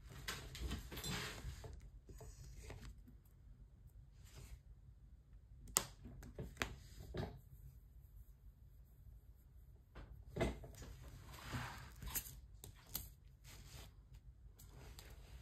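Faint, scattered taps and clicks of a diamond painting drill pen picking up resin drills from a plastic tray and pressing them onto the sticky canvas, with light rustling between them.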